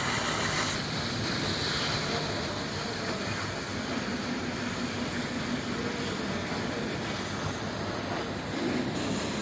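Automatic steel-plate cutting machine's torch cutting through steel plate: a steady hiss with a faint low hum.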